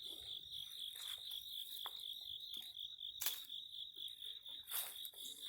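Insects chirping in a steady high pulsing trill, about five pulses a second, with a single sharp click about three seconds in.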